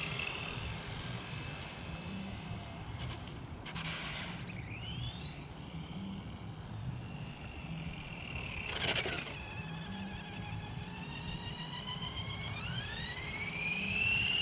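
Electric radio-controlled car's motor whining, its pitch rising and falling in long sweeps as the throttle is worked, with two short rushes of noise about four and nine seconds in.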